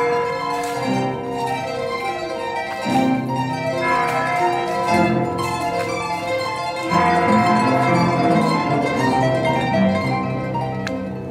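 Paraguayan harp playing a melody of quickly plucked notes.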